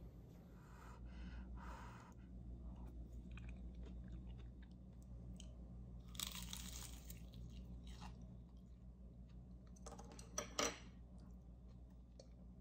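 Faint close-up chewing of crunchy food in a few short spells, with two sharp clicks about ten seconds in, over a low steady hum.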